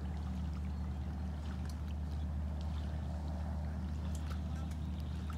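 A boat's motor running at a steady low hum, with a few faint clicks on top.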